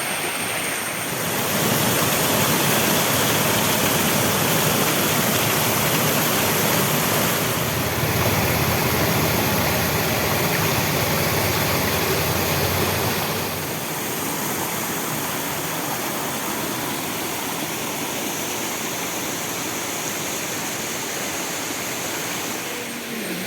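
Rushing water of a forest waterfall and its rocky stream, a steady noise that gets louder about a second and a half in and eases a little about thirteen seconds in.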